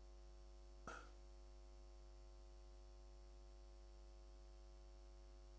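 Near silence: a steady electrical hum, with one short click about a second in.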